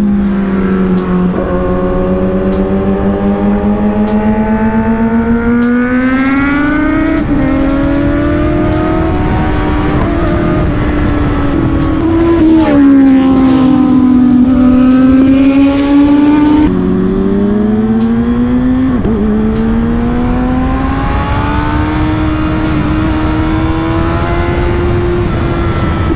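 Inline-four superbike engine under way, rising in pitch as it accelerates and dropping sharply at each gear change, several times over.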